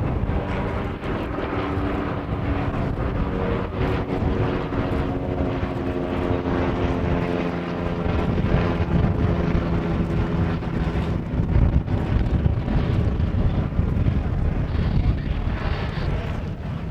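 Propeller-driven aerobatic biplanes' piston engines drone through a display pass. A stack of engine tones sags slightly in pitch partway through, over a steady rush of wind and air noise.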